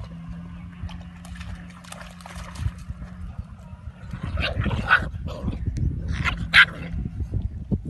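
Belgian Malinois puppies play-fighting and barking in two short bursts, about halfway through and again near the end.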